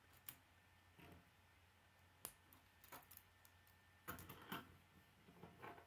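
K'nex plastic rods and connectors being handled and snapped together: faint scattered plastic clicks, with a busier run of clicks and rattles about four seconds in.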